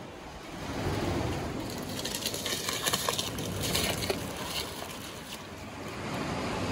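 Plastic bag crinkling and crackling as it is squeezed and handled, thickest between about two and four and a half seconds in, over a steady rushing hiss.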